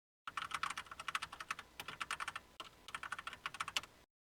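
Computer keyboard typing: rapid keystroke clicks in three quick runs with brief pauses between them.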